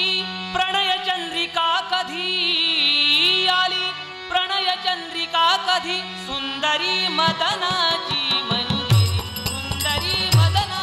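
A man sings an ornamented Marathi folk song over a steady low drone. About seven seconds in the drone drops out, and from about nine seconds a two-headed hand drum and small hand cymbals come in with a steady beat.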